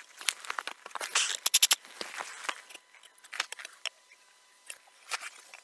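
Short wooden knocks, clatters and scrapes of timber posts, braces and wedges being handled and fitted, with a quick run of knocks about a second and a half in.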